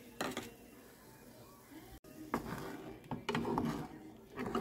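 A wooden spoon stirring peach chunks in sugar water in a saucepan, knocking and scraping against the pan. The stirring is irregular and comes in the second half, after a single sharp knock near the start.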